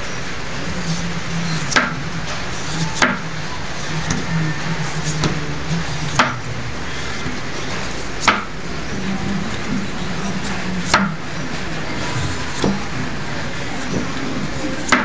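Blade strokes peeling the skin off an unripe green papaya: about seven short, sharp scrapes spaced one to three seconds apart, over a steady low hum.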